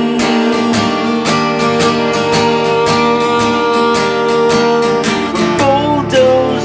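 Instrumental music: acoustic guitar strummed in a steady rhythm, with a violin whose line slides up and down in pitch near the end.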